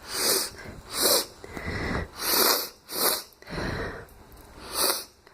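A person sniffling: five sharp, hissy sniffs through the nose, unevenly spaced, with softer breathing between them. These are dry, allergy-like sniffles with mild trouble breathing.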